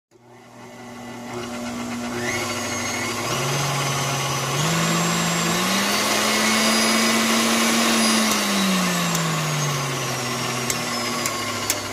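KitchenAid tilt-head stand mixer running empty on a test run after a gear replacement, its motor and gearbox whirring. It starts from silence and builds. The pitch rises in steps as the speed lever is pushed up, holds, then slides back down as the speed is lowered. A few sharp clicks come near the end.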